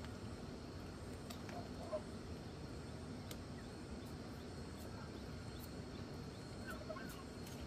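Quiet outdoor ambience with a chicken giving a few soft, short clucks, about two seconds in and again near the end, over a faint steady high-pitched insect hum.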